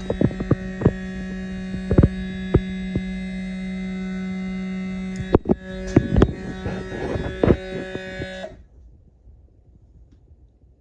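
AC servo motor powered on, giving a steady electrical buzz mixed with irregular clicks and knocks: the grinding noise on power-on that marks a fault. It drops out for an instant about halfway, then cuts off suddenly a couple of seconds before the end.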